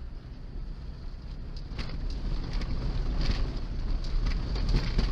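Wind buffeting the microphone of a gun-mounted camera: a low, steady rumble that grows louder in the second half, with a few short clicks and rustles.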